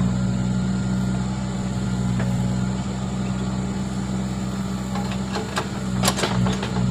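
Diesel engine of a Case backhoe loader running steadily as its arm swings a bucket of sand over a dump truck. A few sharp knocks come near the end.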